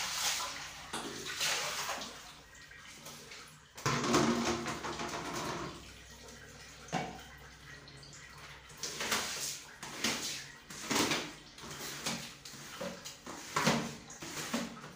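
Water splashing and sloshing from a plastic basin in short irregular bursts, the longest and loudest about four seconds in.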